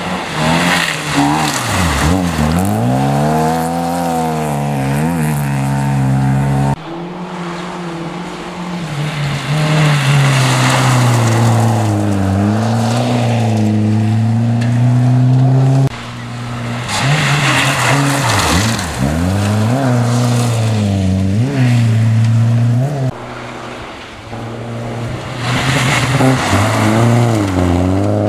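Rally cars driving hard through a gravel corner one after another, engines revving high, dropping off as the driver lifts and climbing again through the gears, with a hiss of thrown gravel as each car passes. The sound cuts abruptly from one car to the next three times.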